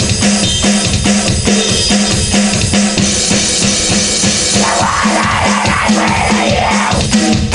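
Home-recorded rock song with a fast, steady drum-kit beat over a pulsing bass note; cymbals wash in about three seconds in and the music fills out with more instruments a little before the five-second mark.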